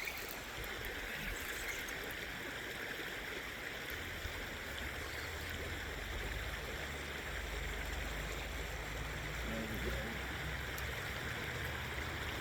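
Steady rush of flowing river water, with a low rumble joining about four seconds in.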